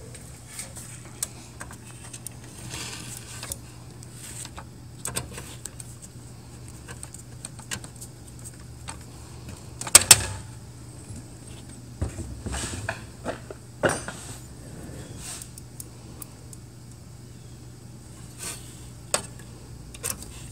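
Scattered clicks, clinks and knocks of a hand screwdriver and screws against the sheet-metal chassis of an HP LaserJet 4250 as the swing plate's screws are put back in, the loudest knock about halfway through. A steady low hum runs underneath.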